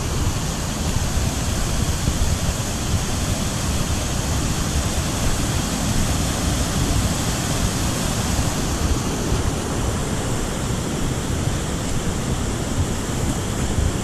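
Steady rush of water pouring over the rocks of a river cascade and small waterfall, with a low rumble of wind on the microphone.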